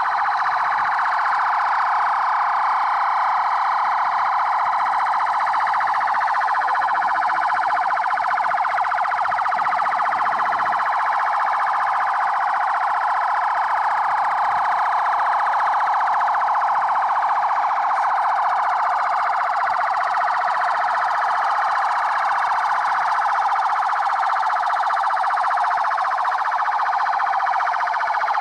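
Several police vehicle sirens sounding together, their rising and falling tones overlapping in a steady, unbroken chorus.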